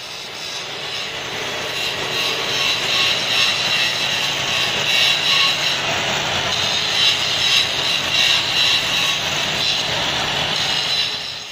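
Abrasive cut-off saw (chop saw) grinding through steel, a loud steady high-pitched screech that builds over the first couple of seconds and drops away just before the end.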